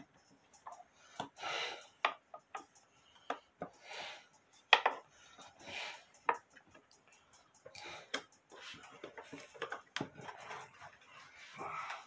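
Scattered light clicks, taps and brief rustles of hands working at a wooden clock case and its dial, with a sharper click about five seconds in.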